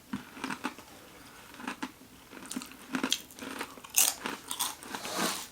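Close-mic chewing and biting into a toasted sandwich: short crunches and mouth clicks, busier and louder in the second half.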